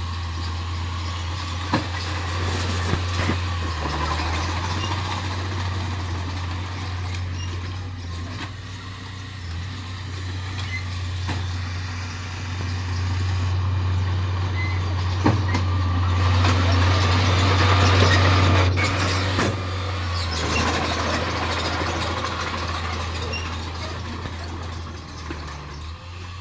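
Heavy diesel earthmoving machinery running with a steady low drone. It swells for several seconds in the middle with a rush of noise, and there are a couple of sharp clanks.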